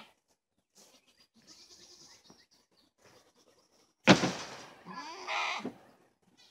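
Goats bleating, faint at first, then louder. A sharp thump about four seconds in, the loudest sound, as a hay bale is set down.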